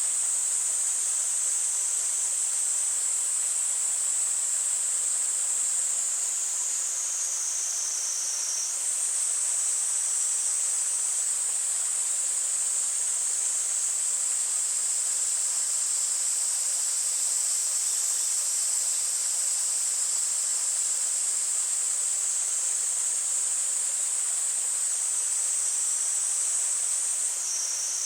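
Cicadas singing in a loud, steady high-pitched drone whose pitch dips lower twice, about eight seconds in and near the end, over the even rush of a mountain stream.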